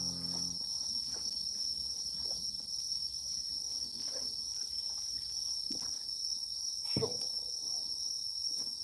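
Crickets trilling in one steady high continuous tone, with scattered faint taps and one sharper knock about seven seconds in.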